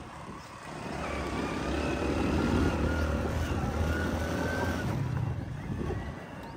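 A motor vehicle's engine running, growing louder about a second in and fading away near the end.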